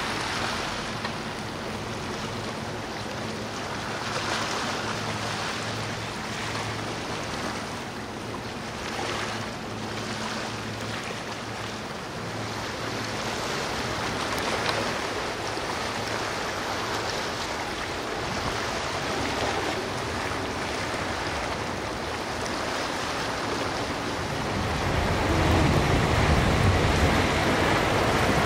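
Choppy sea and wind, with the low steady drone of a motor yacht's engines under the wash of its wake. Near the end it grows louder and deeper as a Pardo 50 powerboat runs past, its hull throwing a rushing wake.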